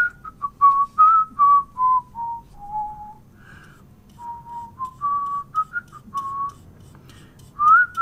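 A man whistling a tune as he works: a string of short notes stepping up and down, with a brief pause partway through. A few faint light ticks come through underneath.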